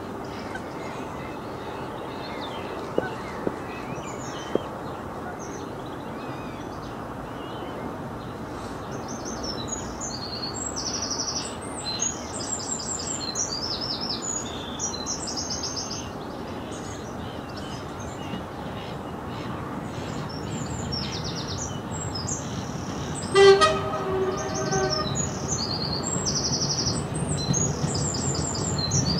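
Songbirds singing, with a diesel multiple unit sounding its horn once, a single steady blast about a second and a half long about three-quarters of the way in. The low rumble of the approaching train builds near the end.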